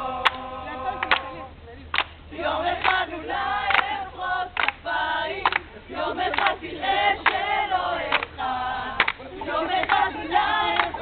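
A group of voices singing together, with sharp claps or knocks now and then.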